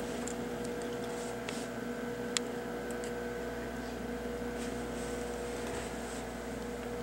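Steady electrical hum from a Hughes HTT-1000-C04 reflow solder power supply switched on and idling, with a few faint clicks and one sharper click about two and a half seconds in.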